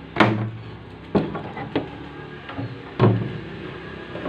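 Plastic back cover of a CRT television knocking and scraping as it is lifted off the set: about five separate knocks, the loudest just after the start and about three seconds in.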